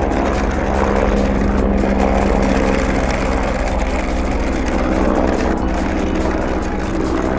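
Toy helicopter's motor and rotors whirring steadily, a constant hum with a fast chopping flutter on top.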